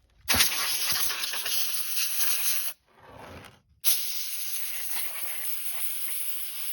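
Compressed-air blow gun hissing as it blows down the outside of a chainsaw, in two long blasts with a short break a little before halfway.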